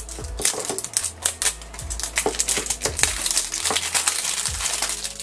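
Plastic shrink wrap being peeled and pulled off a small toy box by hand, crinkling throughout.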